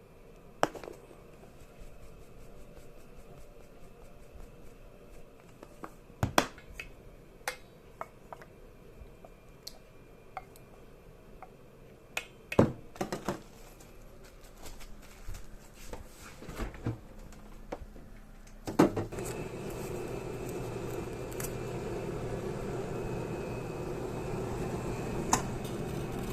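Kitchen clatter: scattered clinks and knocks of dishes and utensils. About nineteen seconds in, after a louder knock, a steady mechanical hum starts and keeps going.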